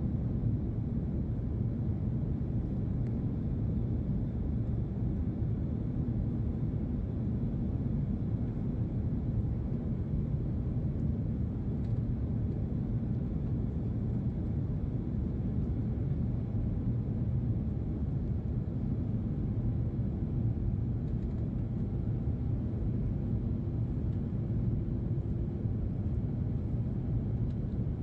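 Steady low rumble of an airliner cabin in flight, the drone of engines and rushing air heard from a window seat during the descent before landing.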